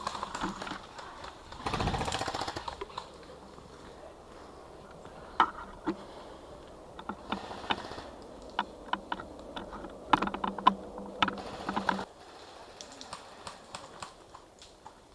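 Airsoft guns firing: short rapid rattling bursts, about two seconds in and again near the end, with scattered single clicking shots in between.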